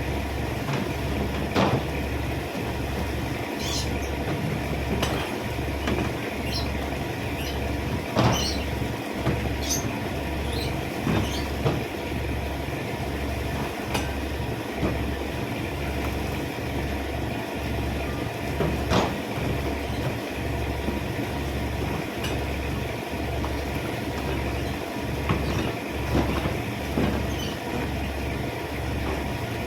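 A machine running with an even low throb, a little over one beat a second, with scattered clicks and clinks over it.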